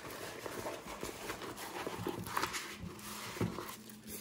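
Diamond painting canvas being rolled up by hand: rustling and crinkling of the canvas and its paper sheet, with a couple of soft knocks.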